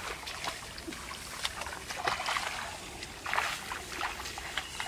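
Hands sloshing and splashing through shallow muddy water while groping for fish, with scattered small splashes and drips and two louder splashy stretches, about two seconds and three seconds in.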